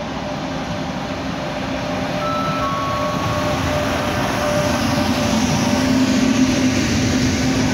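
Frecciarossa ETR 500 high-speed electric train passing close by, the rumble of its wheels on the rails growing louder as the cars go past, with a steady low hum.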